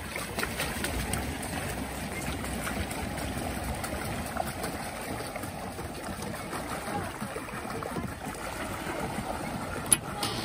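Pedal-driven paddle boat's paddle wheel churning the water as it is pedaled: a steady splashing and gurgling. A single sharp click sounds near the end.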